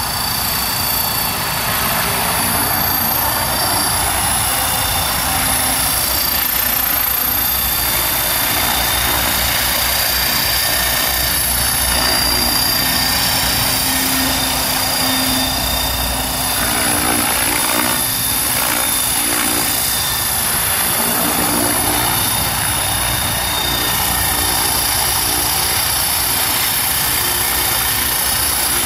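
GAUI 550 electric RC helicopter in flight: a steady high whine from its motor and drive over the rushing of its 550 mm main rotor blades. The pitch wavers briefly about two-thirds of the way through.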